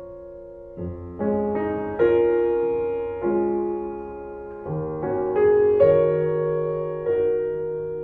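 Slow, gentle piano music: chords and single notes struck every second or so, each left to ring and fade.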